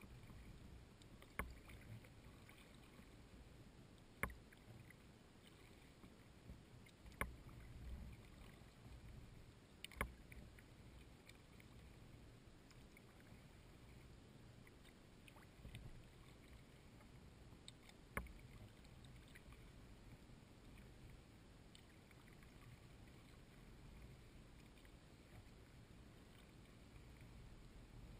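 Near silence: a faint low rumble of a kayak gliding on river water, with a few short sharp knocks on the boat, the first four about three seconds apart and one more later.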